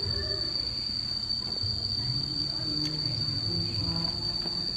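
A steady high-pitched whine that does not pulse or change, over a low background murmur.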